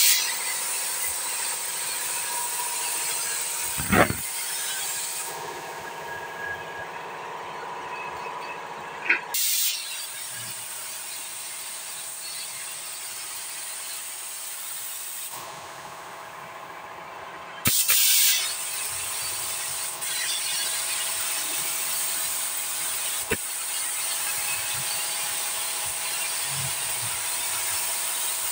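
Compressed-air gravity-feed paint spray gun hissing steadily as top coat is sprayed, with short louder blasts of air at about nine and eighteen seconds. A single thump about four seconds in.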